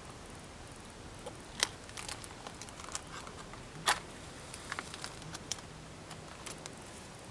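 Smouldering embers crackling under a burning sneaker: scattered small ticks and pops, with two sharper pops about one and a half and four seconds in, over a steady faint hiss.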